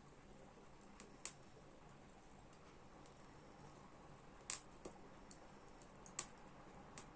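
Small wood fire crackling: about six sharp pops, three of them louder, over a faint steady hiss.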